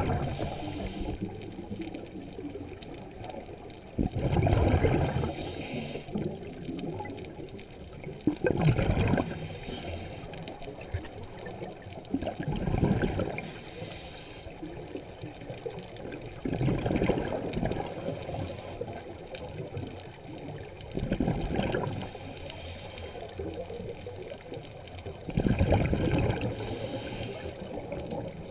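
Scuba diver breathing through a regulator, heard underwater: exhaled bubbles gurgle out in a burst about every four seconds, seven times, with a fainter high hiss between them.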